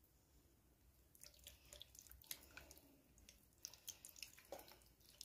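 Faint wet squishing and soft sticky smacks of hands rubbing a sauce marinade into the skin of a raw whole chicken, an irregular scatter of small clicks.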